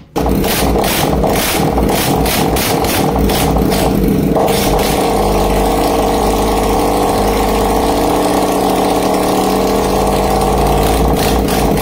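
TVS Jupiter scooter's single-cylinder four-stroke engine fires up right at the start and runs steadily. It runs with the exhaust silencer removed, which makes it sound very different from normal.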